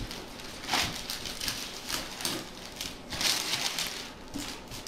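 Paper and cardboard rustling and crinkling as a gift box is opened and its packing pulled out, in short bursts, the loudest about a second in and about three seconds in.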